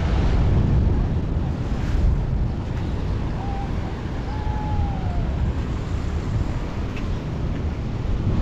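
Wind buffeting the microphone: a heavy, gusting low rumble.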